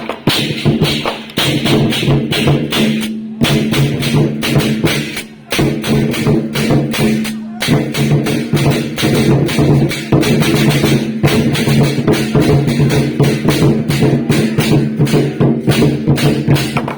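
Traditional temple ritual music: fast, dense percussion strikes over steady held pitched tones, with two brief breaks.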